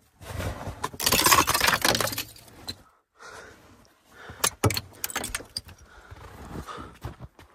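Icicles being broken off a roof edge by hand, clinking and shattering: a loud tinkling clatter for about two seconds, then scattered sharper clicks and cracks.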